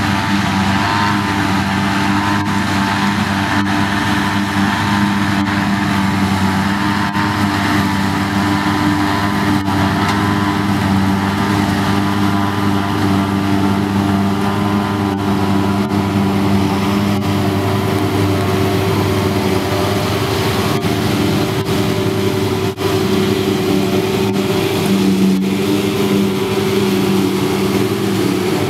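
Diesel engines of silage machinery (John Deere tractors and a forage harvester) running steadily, with several steady engine tones and a higher whine throughout.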